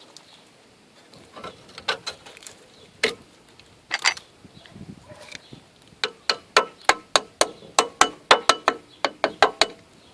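Metal hand tools working on a car's brake caliper: a few separate sharp knocks, then from about six seconds in a quick, even run of ringing metallic clicks, about five a second.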